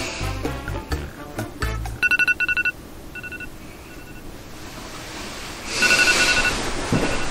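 Background music with a bass beat. About two seconds in, an alarm tone starts going off in quick pulsed beeps. It comes back in shorter bursts and sounds again near the end.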